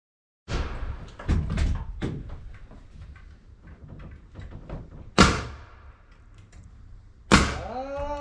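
Knocks and thuds of wooden framing lumber being worked and fastened: a few heavy hits starting half a second in, lighter clattering, then two sharp, loud knocks about five and seven seconds in.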